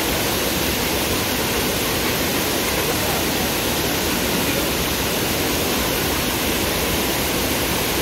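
Fast-flowing rocky stream rushing over boulders: a steady, even rush of water.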